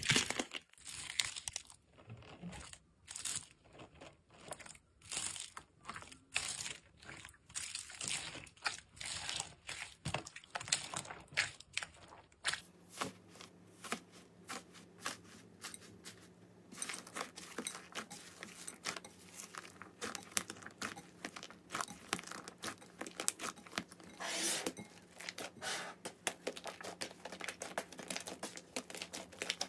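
Hands crushing a cracked, dried crust of clay, which gives off many small crackles and crunches. About twelve seconds in it changes to slime with a crusted skin being torn open and squeezed, with softer crackling and tearing.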